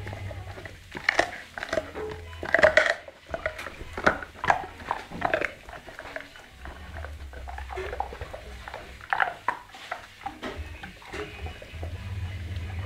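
American pit bull terrier chewing and crunching a raw meaty bone: irregular bites and sharp crunches, loudest and thickest in the first few seconds, easing off in the middle and picking up again briefly later.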